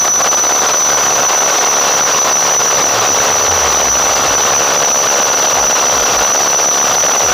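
Power drill with a core-cutting bit boring a hole through a wall, running steadily under load: loud grinding noise with a high, steady whine on top.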